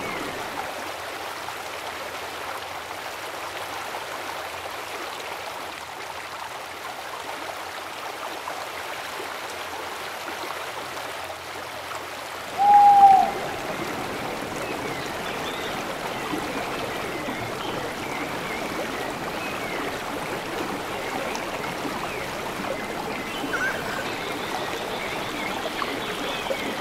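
Rocky river water running steadily over stones, a constant rushing hiss. About halfway through, a single short, loud call dips in pitch.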